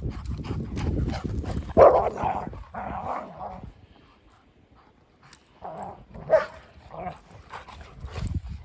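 Old English Sheepdogs barking and yipping as they play rough, with a loud bark about two seconds in, a quiet stretch in the middle, then more short barks and yips near the end. A low rumbling noise runs under the first two seconds.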